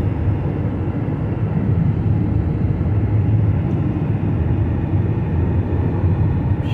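Steady road and engine noise of a car driving at highway speed, heard from inside the cabin as an even low rumble.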